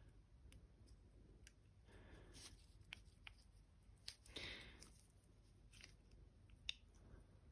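Near silence with faint, scattered small clicks and soft rustles as a carburetor float and its hinge pin are handled and fitted into place.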